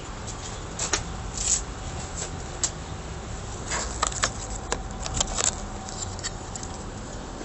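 Irregular clicks, taps and short rustles of a handheld camera being handled and moved, over a low steady rumble.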